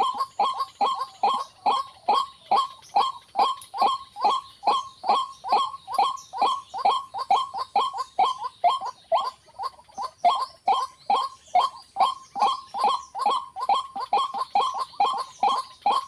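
White-breasted waterhen's 'ruak-ruak' call, short calls repeated steadily about three times a second without a break, each dropping in pitch.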